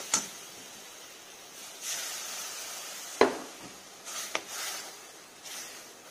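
Faint steady sizzling hiss from a butter-and-flour roux in an iron kadai as milk is worked in for white sauce, with a steel slotted spoon scraping against the pan. A sharp knock about three seconds in is the loudest sound, followed by a few shorter knocks and scrapes.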